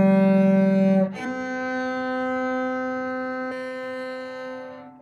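Bowed cello closing a C major round: a short note, then a step up to a final note held for about four seconds that fades away near the end.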